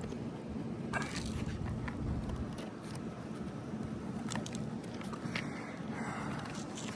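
Light scraping and crackling of brittle asphalt roof shingles, with a few scattered clicks and a short scrape near the end, over a steady low rumble.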